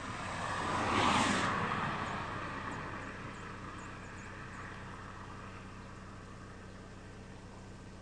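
A vehicle passing by, swelling to its loudest about a second in and then fading away slowly over several seconds. A few faint high chirps come through as it fades.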